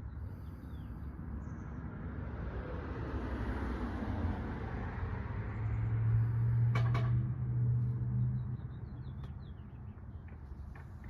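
A vehicle passing by: a hiss swells and fades, with a low steady engine hum strongest in the middle. Faint bird chirps and a single sharp click can be heard over it.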